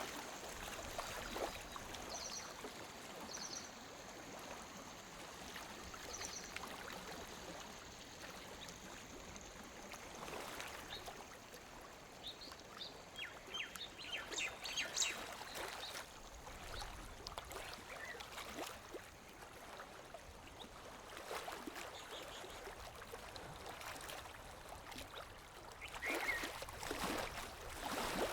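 Lake water lapping gently against the shore in small, irregular splashes, with a few louder laps now and then.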